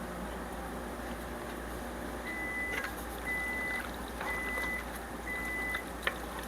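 An electronic beeper sounding four times, about one beep a second, each a steady high tone about half a second long, over a steady background hiss; a sharp click near the end.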